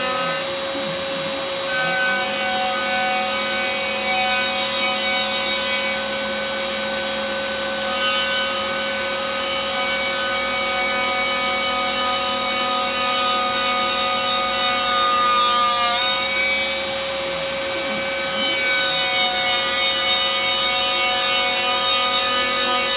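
CNC router's spindle whining steadily as its bit facing-cuts across the top of a redwood board, over the steady noise of the dust-collection vacuum, which is louder than the machine itself. The whine shifts briefly in pitch twice, once near the start and again about two-thirds of the way through.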